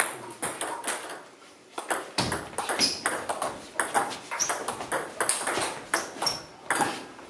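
Table tennis rally: the ball clicking sharply off the bats and the table in quick succession, with sparser clicks in the first two seconds before the rally gets going.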